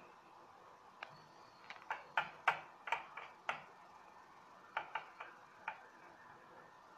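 Light clicks and taps of a stainless steel plate, with a short ring, as a hand presses soft cooked rice-fenugreek dough into it. There is a quick run of about ten taps over the first few seconds and a few more about five seconds in.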